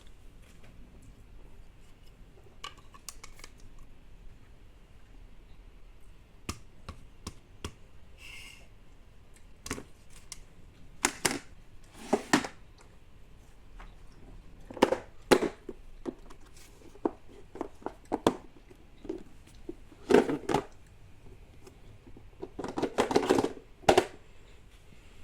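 Small plastic toys being handled: scattered clicks and knocks, with a busier rattle of several knocks close together near the end.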